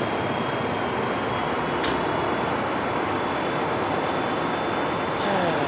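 A stopped Pacific Surfliner diesel locomotive running steadily at idle, with a thin steady high whine over the engine noise and a brief click about two seconds in.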